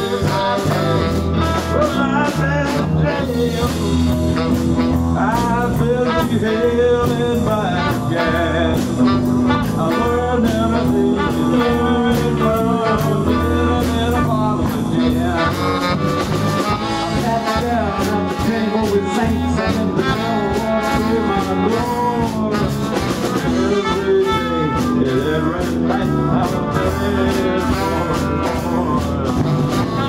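Live blues band playing an instrumental passage: electric guitar, bass guitar and drums with a horn section of saxophone and trumpet.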